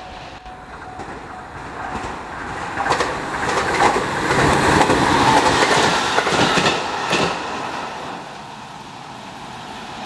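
JR 701 series electric train passing close by, wheels clacking over the rail joints. It grows louder, is loudest a little past the middle with several sharp clacks, then fades as it moves away.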